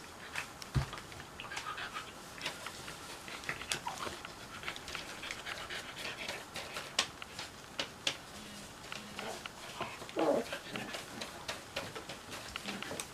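Cocker spaniel puppies panting, with many small clicks and taps throughout and a brief whimper about ten seconds in.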